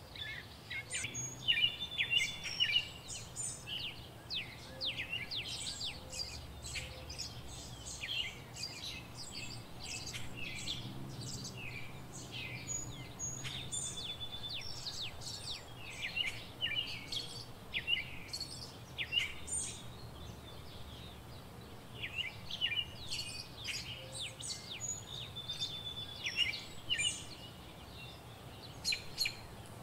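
Small birds chirping and twittering in repeated flurries of short, quick calls, over a faint steady low hum.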